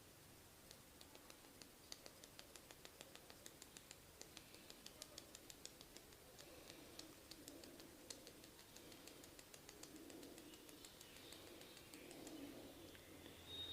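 Faint, quick clicking, several clicks a second, that dies away about nine seconds in, over a soft rustle: a barber's hands working on a client's head during a massage.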